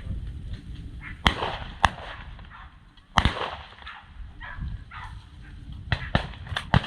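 Shotgun shots fired at a dove overhead: three sharp reports in the first few seconds, the first and third trailing off in an echo, then a quick string of shorter sharp cracks near the end.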